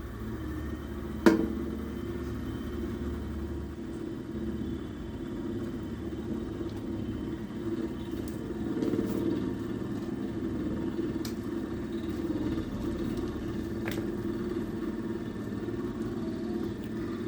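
Battery-powered cotton candy machine's spinner head running empty with a steady hum, heated but not yet fed with sugar; a sharp click about a second in, and a fainter one near the end.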